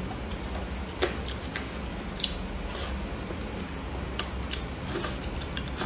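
Chopsticks clicking against each other and the plate while picking up food: a handful of scattered sharp clicks.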